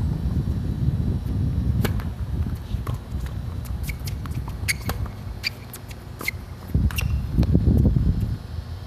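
Tennis ball struck back and forth in a rally on a hard court: a string of sharp pops from racket strings and ball bounces, spread over a few seconds. Wind buffets the microphone throughout, heaviest at the start and again near the end.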